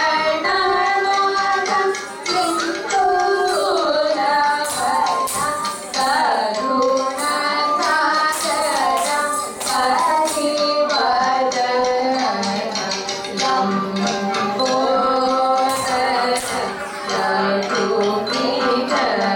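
Indian classical dance music: a female voice sings a winding melody over a steady drone, with jingling, clicking percussion throughout.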